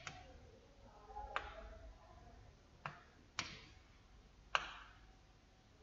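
A few sharp single clicks, about five at uneven gaps of half a second to a second and a half, from a pen or mouse being tapped while writing on a digital whiteboard.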